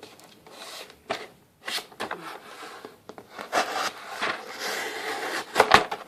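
Rustling, rubbing and light clicks from handling the unboxed Spyderco Sharpmaker's box and parts, with two sharp knocks near the end.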